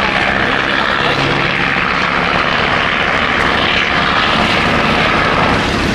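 Large engine running steadily with a constant low drone.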